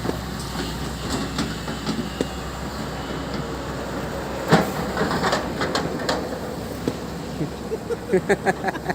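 Backhoe loader's diesel engine running at a low, steady hum, with a sharp metallic clank about halfway through, then a few quick clattering knocks. The hum drops away after the clank, and voices come in near the end.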